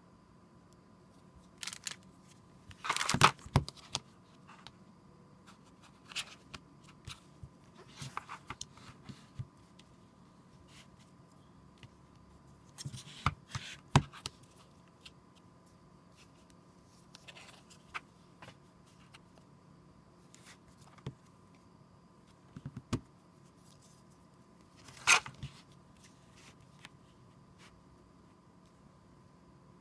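Hands handling a small ring phone holder and a smartphone in a clear plastic case: scattered light clicks, taps and rustles, with a few louder scraping or peeling sounds about three, thirteen and twenty-five seconds in, over a faint steady hum.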